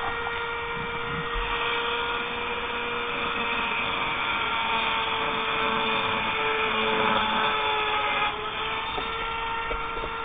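High-speed handheld rotary tool, Dremel-type, running steadily while grinding down a rifle magazine adapter. Its whine holds one pitch, with a brief dip about eight seconds in.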